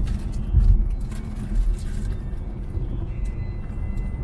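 Car driving at speed, heard from inside the cabin: a steady low rumble of engine and tyres on the wet track surface.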